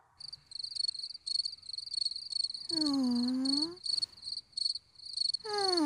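Crickets chirping in quick repeated bursts, the night ambience of a cartoon bedroom. A girl gives two drawn-out 'mm' groans, about three seconds in and again near the end, each dipping in pitch and then rising: restless sounds of someone who can't get to sleep.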